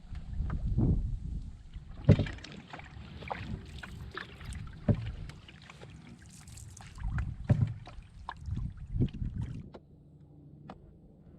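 Canoe being paddled: irregular splashes and knocks from paddle strokes against the water and hull, dying away about ten seconds in.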